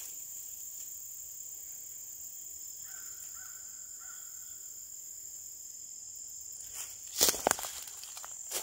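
Steady high-pitched drone of insects, with a bird calling faintly a few times about three seconds in. About seven seconds in, footsteps crunch through dry leaf litter.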